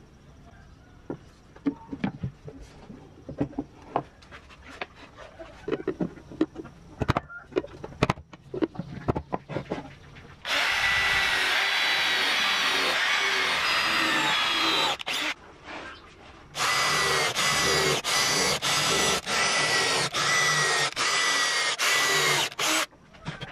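Light knocks and clicks of MDF panels being handled on speaker boxes, then a cordless drill running steadily for about four seconds. It follows with a string of short trigger-pulled bursts as it bores into the MDF top panel of a speaker box.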